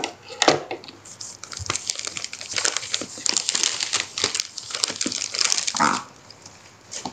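Packaging crinkling and tearing as a gift parcel is opened by hand. One sharp loud crackle comes about half a second in, then a dense run of crinkles and rips until about six seconds in.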